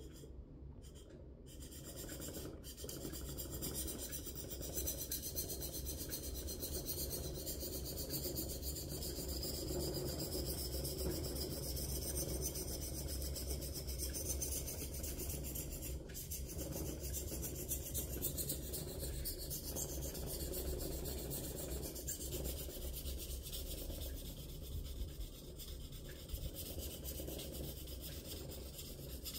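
Victorinox kitchen knife blade stroked back and forth on a Black Shark natural whetstone lubricated with coconut oil, a steady rasping rub. This is the first stage of sharpening, working the edge until a burr is raised.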